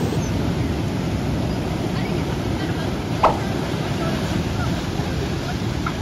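Heavy surf breaking and washing over a rocky shore, a steady deep rush of water. A single short, sharp sound cuts through about three seconds in.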